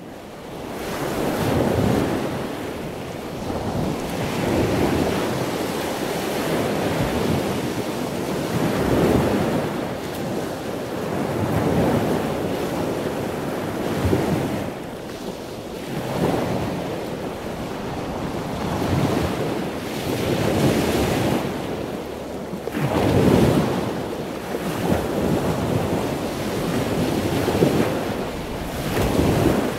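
Sea surf washing onto a sandy beach, a steady rush that fades in at the start and swells every few seconds as waves break.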